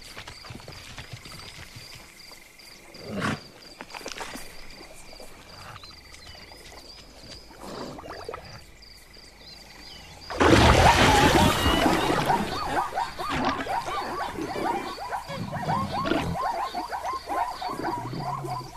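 Cartoon savanna sound effects. A steady chorus of frogs and insects with scattered small clicks runs under the scene, until about ten seconds in, when a sudden loud splash and roar erupts as a crocodile bursts from the water hole. A fast run of short, repeated animal cries follows.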